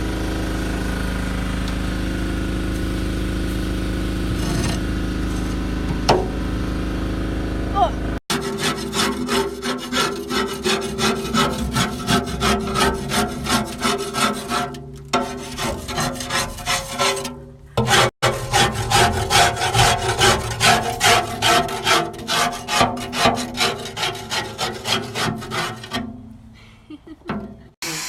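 A steady mechanical hum for the first several seconds, then, after a cut, rhythmic back-and-forth scraping or scrubbing strokes at about two a second, with brief breaks, fading out near the end.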